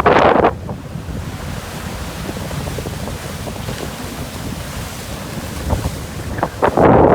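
Rough post-typhoon surf washing in, with strong wind rumbling and buffeting the microphone. Two louder surges come, one at the start and one near the end.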